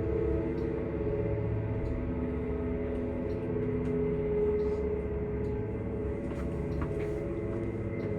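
A Strommashina passenger elevator running, its AS62 motor giving a steady hum made of several held tones, very noisy, with a few faint clicks and ticks over it.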